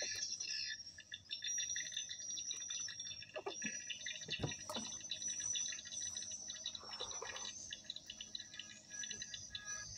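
Dense outdoor chorus of birds and insects chirping at several steady high pitches, fast and pulsing, with a few soft knocks about four seconds in.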